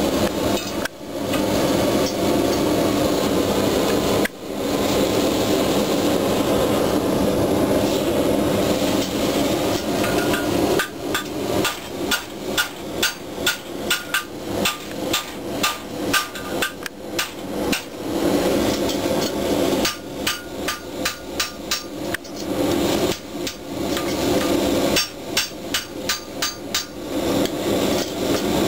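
Farrier's hammer striking metal in runs of quick ringing blows, about two a second, starting roughly ten seconds in, over a steady rushing background noise.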